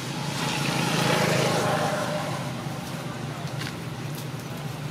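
A vehicle passing: a swell of noise that rises and fades over about two seconds, above a steady low hum.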